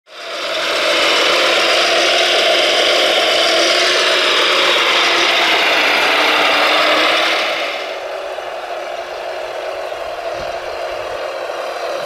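Radio-controlled Volvo L250G wheel loader model running on gravel, its motor and drivetrain giving a steady mechanical whine with a hiss over it. The sound fades in at the start and grows quieter about seven and a half seconds in.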